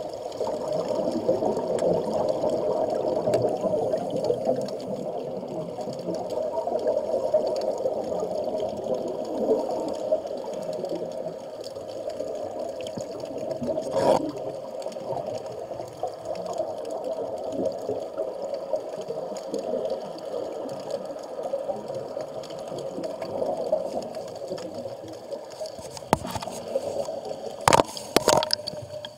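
Underwater bubbling from scuba divers' exhaled air, heard muffled through the camera housing as a steady, irregular bubbling and rushing. There is one sharp knock about halfway through and a few more sharp knocks near the end.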